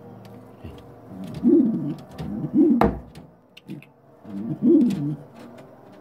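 King pigeon cooing three times, each a low coo that rises and falls in pitch, with a sharp knock about halfway through.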